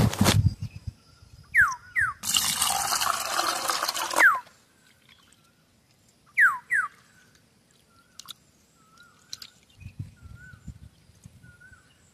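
Water poured into a steel bowl of raw prawns for about two seconds, then faint splashing and dripping as the prawns are rubbed clean by hand in the water.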